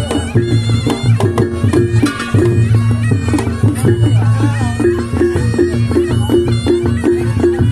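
Reog Ponorogo gamelan music: a reedy, bagpipe-like slompret melody over a steady repeating beat of struck percussion.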